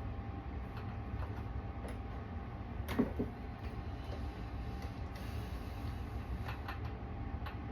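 A sewing machine being handled: scattered light clicks and one louder clunk about three seconds in, over a low steady hum.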